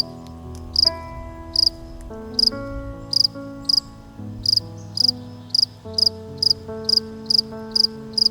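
Cricket chirping, short high chirps repeating about every two-thirds of a second, over soft sustained background music chords.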